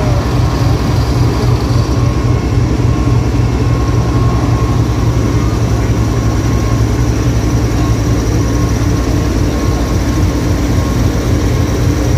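Diesel locomotive's engine running with a steady low rumble and hum as a passenger train pulls slowly out, its coaches rolling past.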